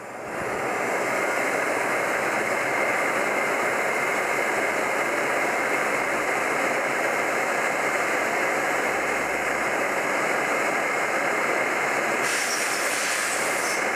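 Electric heat gun switched on about half a second in and running steadily, its fan blowing hot air onto a rifle part to heat it. A higher hiss joins near the end.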